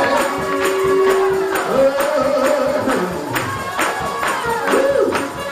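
Gospel praise music: a tambourine keeps a steady beat under held, gliding singing and accompanying instruments.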